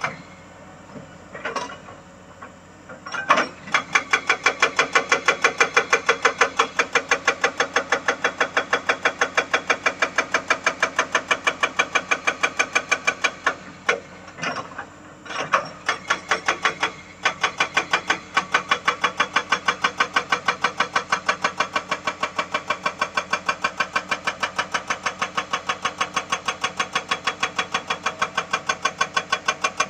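Excavator-mounted hydraulic breaker hammering rock in fast, even blows, about five a second. A few single knocks come first, then a long run of hammering, a pause with scattered single strikes about halfway, and steady hammering again after that.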